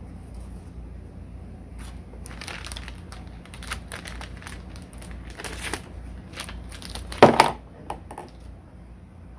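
Packaging being handled and opened: irregular crinkling and rustling, with a louder crunch about seven seconds in.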